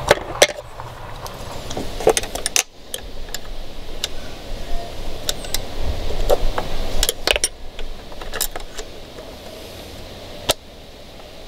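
Irregular small metallic clicks and clinks of needle-nose pliers and a wrench working the shift cable end and its retaining clip on a Yamaha F70 outboard's linkage while the cable is tightened, with one sharp click near the end.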